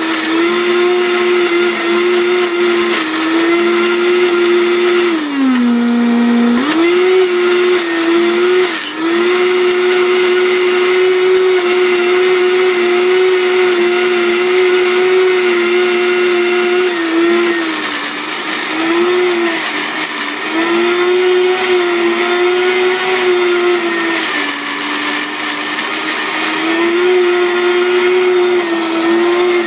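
Vitamix blender with a WildSide jar running at high speed, blending frozen fruit and orange juice into a thick, sorbet-like mix. It makes a steady high motor whine that sags in pitch for about a second about five seconds in, then picks back up, with a few smaller dips later.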